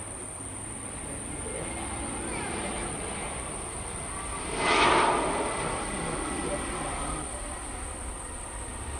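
Airbus A320-200 jet engines on final approach and landing, a steady rushing noise with a short loud surge about five seconds in.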